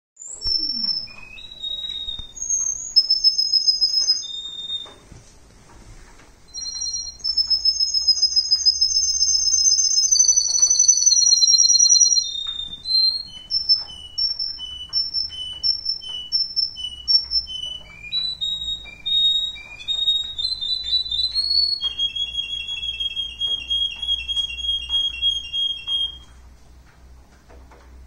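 Russian canary singing a long, varied song of high whistled notes and fast trills, including a run of quick repeated notes and a long, even trill that stops near the end.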